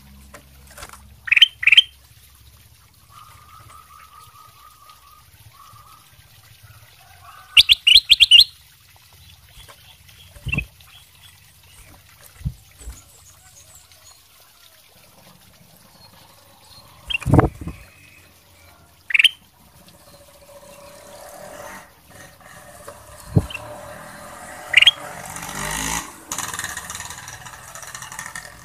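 Ruby-throated bulbul (kutilang emas) in a cage giving short, sharp chirps: a quick pair about a second in, a rapid burst of several around eight seconds, then scattered single calls, with a few dull thumps among them.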